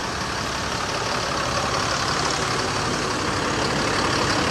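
Large tour bus's diesel engine idling steadily, growing slightly louder toward the end.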